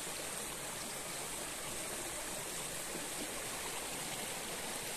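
Steady rush of a flowing river stream.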